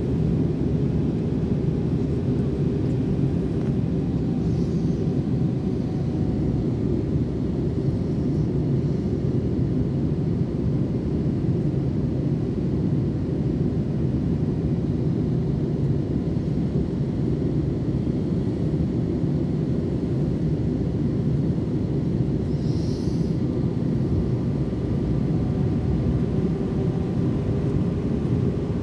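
Steady cabin noise of an Airbus A319 airliner in flight: an even low rumble of engines and airflow heard through the cabin, with a brief faint hiss about three-quarters of the way through.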